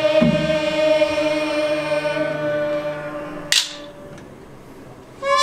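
Korean traditional court ensemble music: long sustained notes with a drum stroke at the start, the held notes fading away. About three and a half seconds in there is one sharp clap, then a short lull before the sustained notes come in again near the end.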